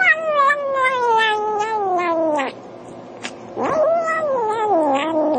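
Kitten giving two long, loud, drawn-out meows, the first falling steadily in pitch over about two and a half seconds, the second starting about a second later, rising then sliding down.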